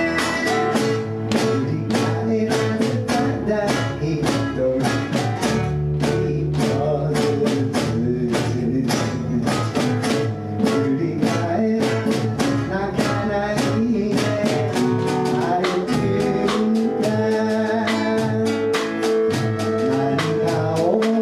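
Live folk-song performance by a small band: acoustic guitar strummed to a steady beat with keyboard, and singing over it.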